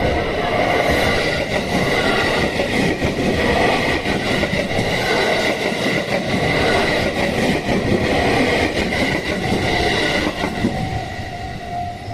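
281 series Haruka limited express train passing over the level crossing, a loud steady rush of train noise. Near the end the train noise eases and the crossing's warning bell tone comes back through.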